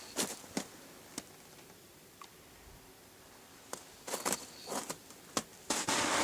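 Scattered footsteps crunching and scuffing on the ground, with light rustles, and a louder scuff near the end.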